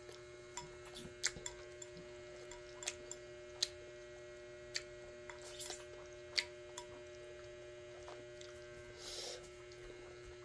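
Chopsticks clicking and tapping against a glass bowl every second or so, over a steady electrical hum. A short soft hiss comes about nine seconds in.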